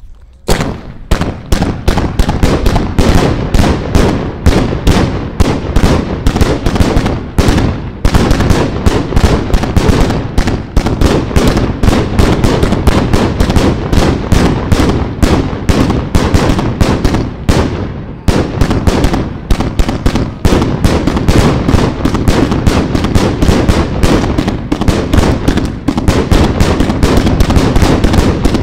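A Mortal Kombat 100-shot consumer firework cake firing in rapid sequence: launch thumps and bursting shells at about three to four sharp reports a second, overlapping, with a couple of brief lulls.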